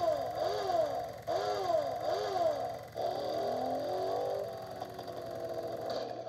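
Department 56 Movers & Shakers animated vampire-on-motorcycle figure playing its electronic motorcycle engine sound effect through its small speaker: revving up and down over and over, about twice a second, under a steady low putter, then turning into a faster, rougher warble about three seconds in.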